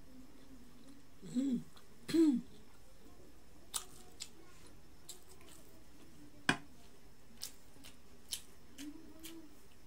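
Mouth sounds of a person eating: two short hummed "mm" sounds in the first couple of seconds, then scattered wet clicks and lip smacks while chewing, with one sharp click about six and a half seconds in.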